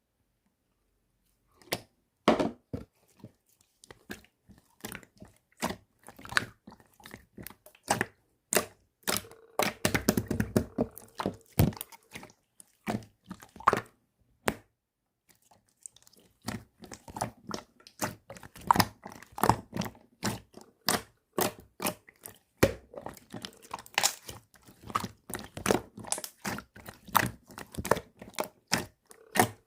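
Slime being squeezed and pressed by hand: a rapid, irregular string of sticky pops and clicks, starting about two seconds in.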